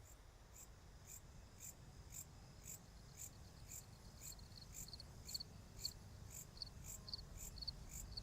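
Insect chirping in a steady rhythm, about two chirps a second, with a second, thinner high trill joining around halfway, over a faint low rumble.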